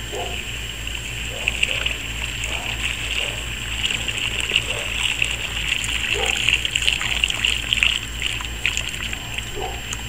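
Boiling water from a kettle pouring in a stream onto the ice of a frozen bird bath, splashing and spattering with many small crackles. It builds a second or two in and dies away near the end as the pour stops.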